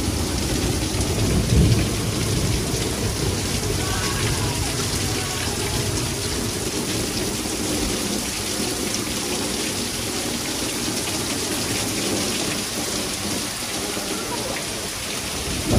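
Heavy thunderstorm downpour: dense, steady rain falling on the yard and the porch roof, with water streaming off the roof edge. A low rumble swells briefly about a second and a half in.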